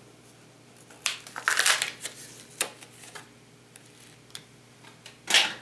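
Lure packaging being handled and opened by hand, crinkling and rustling in short bursts with a few clicks, the loudest burst near the end, as a football jig is taken out of its package.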